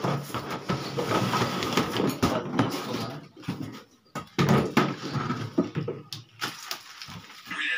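Cardboard rustling and hollow plastic knocks as a plastic backpack sprayer tank is lifted out of its box and its hose is pulled out. The rustling is dense for about the first three seconds, eases off, and picks up again with scattered knocks about four seconds in.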